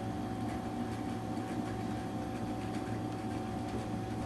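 Steady low hum and hiss with a faint constant whine and no distinct events: room tone.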